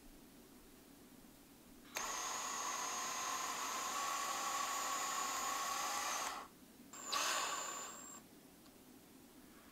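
Cordless drill spinning a screw eye into a carved wooden lure body. It runs steadily for about four seconds, stops, then runs again briefly about a second later.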